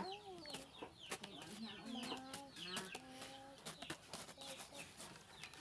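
Chickens clucking faintly, with many short high chirps going on throughout.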